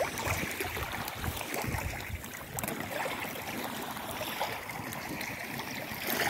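Wind gusting on the microphone over small waves washing onto a pebble shore, a steady rushing noise with uneven low buffets in the first couple of seconds.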